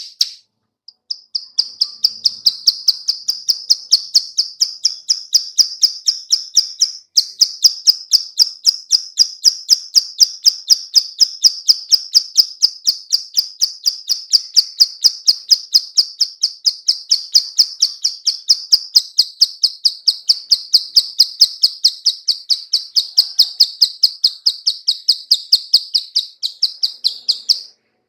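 Female plain prinia (ciblek sawah) giving its 'klik-klik' call: a long, rapid run of dry, high clicking notes, about four a second, with a brief break about seven seconds in.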